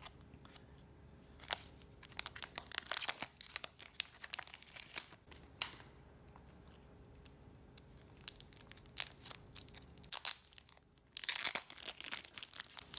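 Foil trading-card pack being torn open and the cellophane wrap around the stack of cards crinkling as it is handled and peeled, in short scattered bursts of crackling, the loudest near the end.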